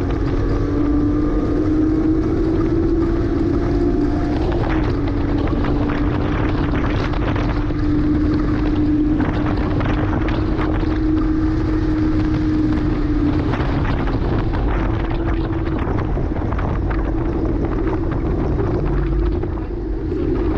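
2009 Porsche Cayman S's flat-six engine pulling hard at high revs on track, its pitch shifting about four seconds in and dipping briefly near the end, with wind buffeting the microphone.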